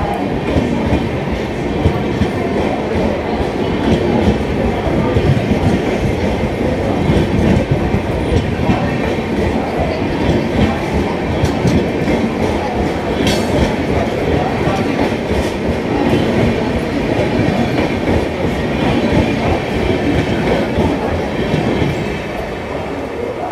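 Mumbai Saket SF Express coaches rolling past close by as the train pulls out, wheels rumbling and clicking steadily over the rails. The noise eases near the end as the last coach goes by.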